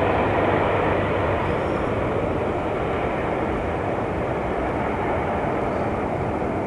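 Boeing 757-200 freighter's twin Rolls-Royce RB211-535E4B jet engines rushing steadily as the airliner rolls out down the runway after touchdown, slowly fading as it slows and moves away.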